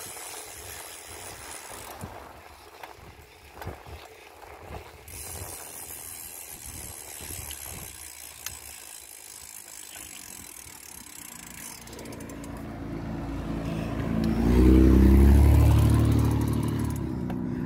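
Rattling and wind noise from a loaded bicycle being ridden. About two-thirds of the way through, a motor vehicle's engine drone swells up, is loudest a few seconds later, then eases off.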